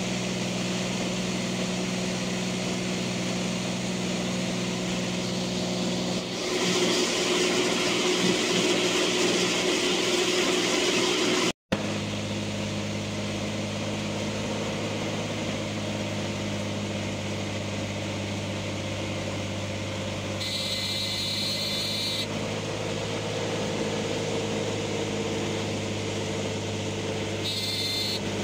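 Light aircraft's piston engine and two-blade propeller heard from inside the cockpit, running steadily on the approach to a water landing. It gets louder about six seconds in, drops out for an instant just before halfway, then runs on at a steady, lower pitch, with two short hissing bursts near the end.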